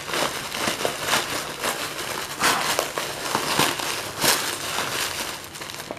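Parcel packaging being torn open and crinkled by hand, an irregular run of crackling and rustling.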